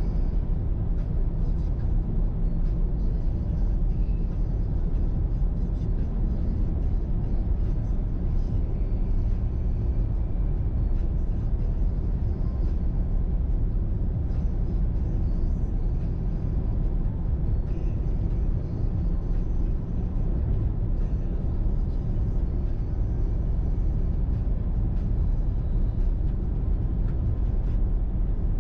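Diesel car driving at highway speed: a steady low rumble of engine and road noise that does not change.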